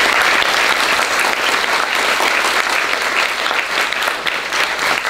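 Audience applauding: dense, steady clapping from many people, thinning toward the end.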